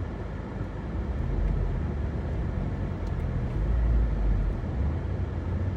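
Honda Civic EP3's K20A2 engine and car running with a low, steady rumble that swells a little about a second and a half in and again around four seconds.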